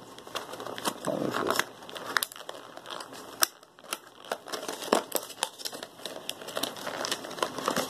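Plastic and cardboard retail packaging crinkling as it is handled and picked open by hand, with irregular sharp clicks and crackles.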